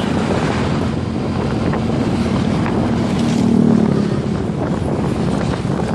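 Wind buffeting the microphone of a moving motorcycle, over steady engine and road noise. An engine note swells briefly about three and a half seconds in.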